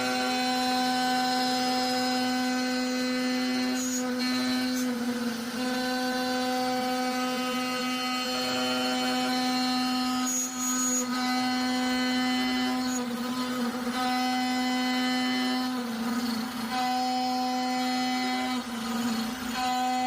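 CNC router spindle running with a steady high whine rich in overtones. Its pitch sags briefly a few times.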